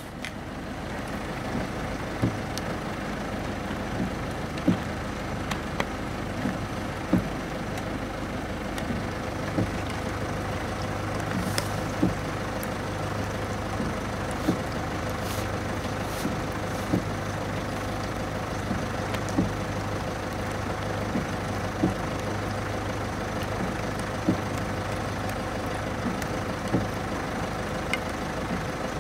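Steady drone of distant machinery with a hum in it, and a dull knock that repeats about every two and a half seconds.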